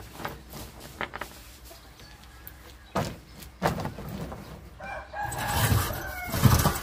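A rooster crows about five seconds in, one drawn-out call. Before it come scattered clicks of snail shells knocking together as they are pushed by hand into a mesh bag, and a thump near the end.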